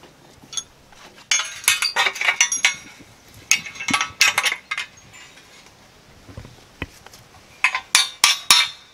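Hammer striking the metal wedges of a Strainrite wedge-style net board clamped onto woven wire fence, driving them in so the board grips the wire. Clusters of sharp metallic clinks in the first half, then a quick run of strikes, about four a second, near the end.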